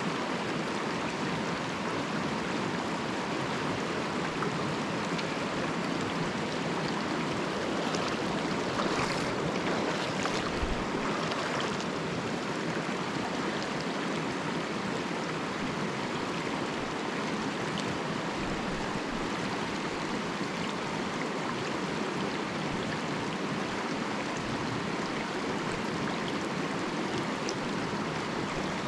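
Mountain stream running: a steady, unbroken rush of water.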